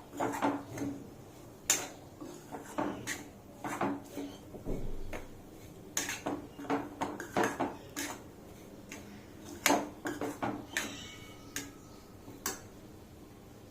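A spatula scraping and clinking against the pan as semolina is stirred and roasted in ghee, in irregular knocks and scrapes that stop about twelve and a half seconds in.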